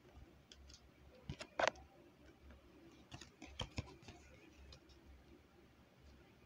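Tarot cards handled and set against a small wooden easel: a few light clicks and taps, the loudest about a second and a half in and another cluster around three and a half seconds.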